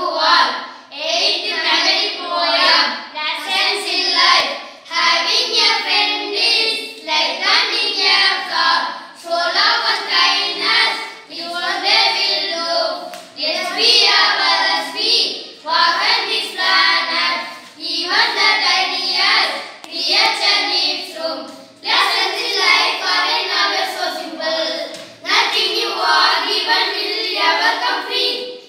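A group of boys singing a memorised poem together in unison, in phrases of a second or two with short breaks for breath between them.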